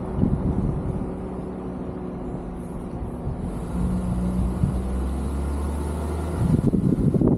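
Car driving along a street, its engine hum and road noise picked up by a roof-mounted camera; the hum deepens for a couple of seconds midway, and wind buffets the microphone near the end.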